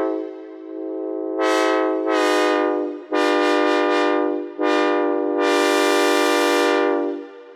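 Synthesized Nathan K5LA five-chime locomotive air horn playing a horn show. The chord sounds throughout, swelling into a run of full blasts, with a quick stutter of short pulses in the middle. A long final blast fades out near the end.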